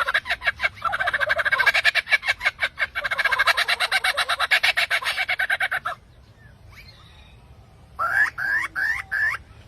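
A bird calling: a fast run of pulsed notes, about ten a second, for roughly six seconds, then a short pause, then about five short rising calls near the end.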